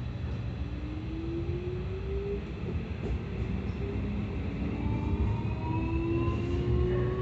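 Keikyu 1000 series train with permanent-magnet synchronous traction motors accelerating: the motor whine rises in pitch in two upward sweeps over a steady low rumble from the running gear.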